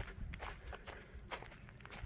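Footsteps of a hiker walking on a forest dirt path covered in dry fallen leaves, each step a short crunch and rustle of leaves, several steps in quick succession.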